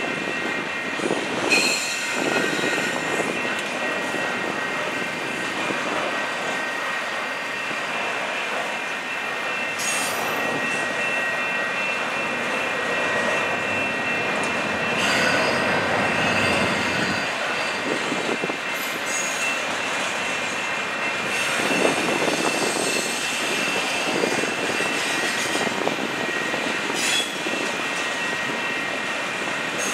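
Canadian Pacific double-stack intermodal train's container well cars rolling steadily past, steel wheels on rail with a steady high-pitched squeal and a few sharp clanks.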